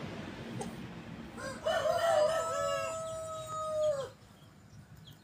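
Brahma rooster crowing once, about a second and a half in: a few short broken notes, then one long held note that drops away at the end.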